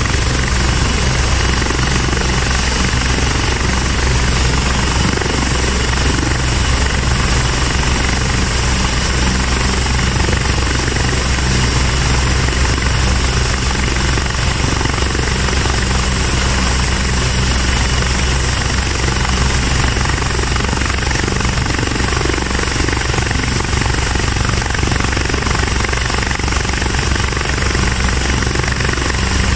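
Airbus H175 helicopter's twin Pratt & Whitney PT6C-67E turboshaft engines running steadily on the ground with the main rotor turning. A steady high turbine whine sits over a low drone.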